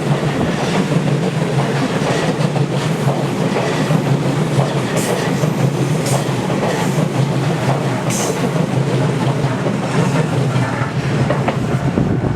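E233-series electric train passing close by: a steady loud rumble with the clickety-clack of wheels over rail joints.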